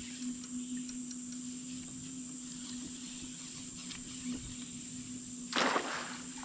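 Steady chorus of crickets and other insects with a thin high buzz over it and a faint low hum beneath. A short burst of rushing noise comes about five and a half seconds in.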